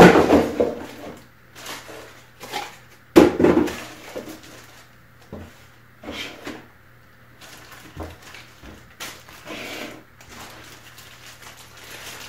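Cardboard box and packed tool parts handled and set down on a wooden table: a loud thump at the start and another about three seconds in, then lighter knocks and the rustle of packaging.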